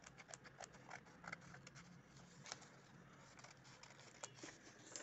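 Scissors snipping through folded pink colour paper: faint, irregular snips.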